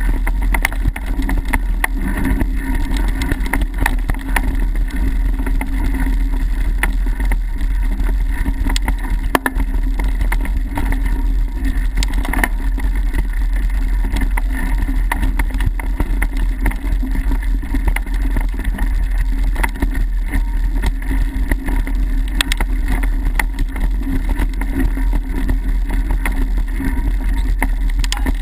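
Mountain bike riding fast down a dirt trail: steady rumble with wind buffeting on the microphone, and frequent sharp clicks and rattles as the bike goes over bumps and roots.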